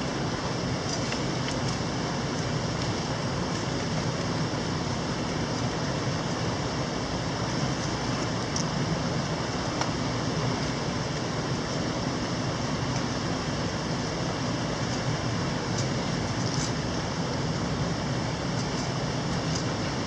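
Steady rush of a mountain stream flowing over rocks, an even noise with no breaks.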